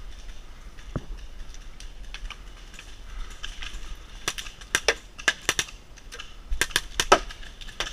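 Paintball fire: sharp pops in quick irregular bursts, starting about halfway through and coming in two clusters.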